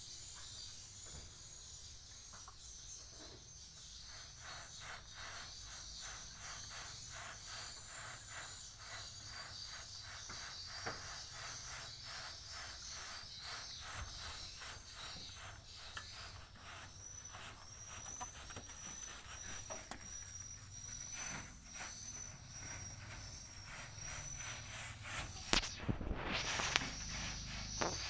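Insects chirping in the background, a high steady trill with rapid pulsing that goes on throughout. Near the end a few louder knocks and rustles stand out.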